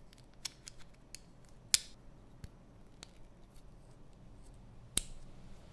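Small plastic armadillo toy figure being handled as its ribbed shell is fitted onto the body: a scatter of light plastic clicks, with two sharper snaps, one a little under two seconds in and one near the end.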